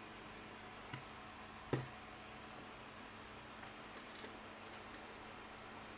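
Faint steady hum with two light, sharp clicks about one second and nearly two seconds in, and a few softer ticks later on.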